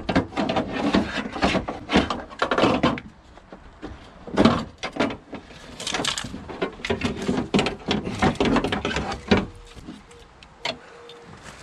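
Broken cable-type window regulator from a BMW 1 Series door, its metal rails and loose cables clattering and scraping against the door's inner panel as it is worked out through the openings. The clunks and scrapes come in irregular runs and thin out near the end.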